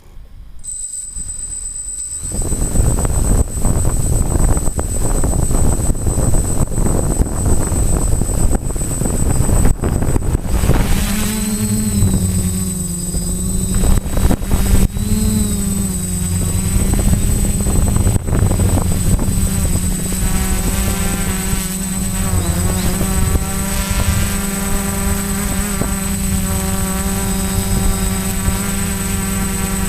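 Quadcopter electric motors and propellers. A thin high steady whine comes in under a second in. From about two seconds a loud rushing noise begins, and from about eleven seconds it settles into a steady pitched buzzing hum that briefly rises and dips a few times as the throttle changes.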